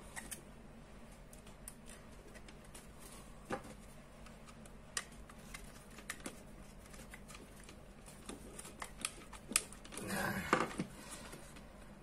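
Scattered small clicks and scrapes of hands handling a plastic two-way wall switch and a small screwdriver working its terminal screws. A brief murmur of a voice comes near the end.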